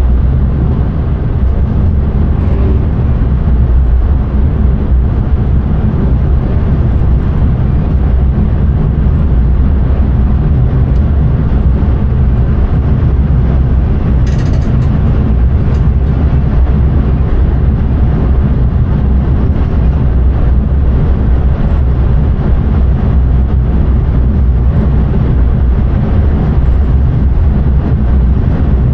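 Intercity train heard from inside the driver's cab while running along the line: a loud, steady low rumble of running noise with a faint hum, and a brief hiss about fourteen seconds in.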